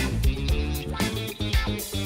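Upbeat background music with a steady beat and guitar.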